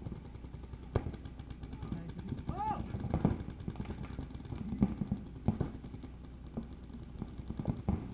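Scattered sharp pops of paintball markers firing at irregular intervals across the field, mixed with distant shouting, including one short high cry about two and a half seconds in.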